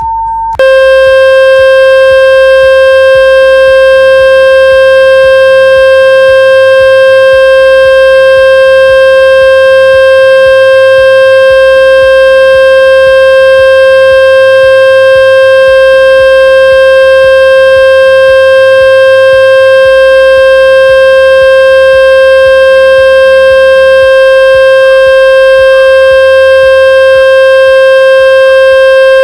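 Electronic water-ejection tone for clearing a phone speaker. A pure tone switches about half a second in to a lower, buzzy tone with many overtones, which is held loud and unchanging.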